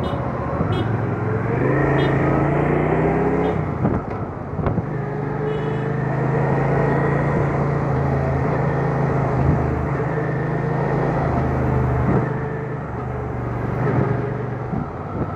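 Motorcycle engine heard from the rider's seat, rising in pitch as it accelerates, with a gear change about four seconds in. It then runs steadily at riding speed and eases off slightly near the end.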